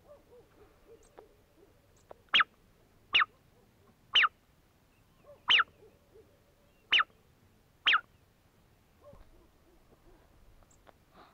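Six short, sharp whistled calls, each sliding steeply down in pitch, with uneven gaps of about a second between them.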